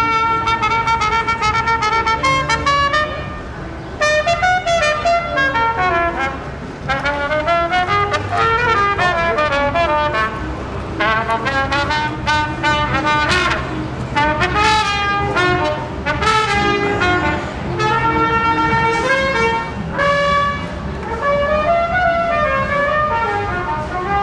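Trumpet-led brass music playing continuous melodic phrases that run up and down.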